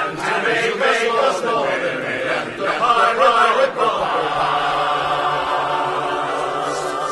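Men's chorus singing a stage operetta number at full voice, moving from note to note for about four seconds and then holding one long chord.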